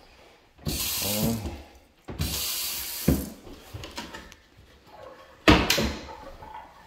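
Kitchen faucet turned on and off, water splashing into a stainless steel sink in two runs of about a second each, then a brief, louder gush near the end.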